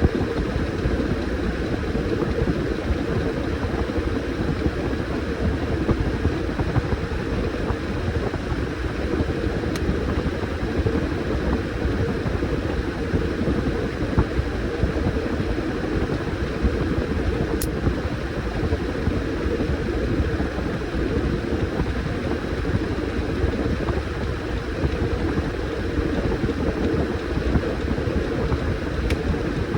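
Washing machine running with a load of towels, a steady, unbroken mechanical hum.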